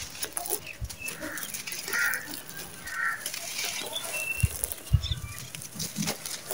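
Dry red sandy soil clumps crushed by hand, crumbling with gritty crunches as grains and dust pour between the fingers. A few short bird chirps sound in the background.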